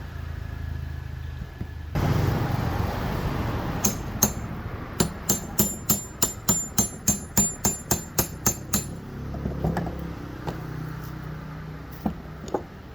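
Metal being struck: a couple of sharp knocks, then a quick, even run of metallic taps, about four a second, for roughly four seconds, over a low hum.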